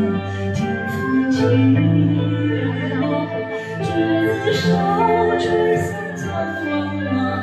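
A male singer singing a slow, melodic song into a handheld microphone over an accompaniment track with a steady bass.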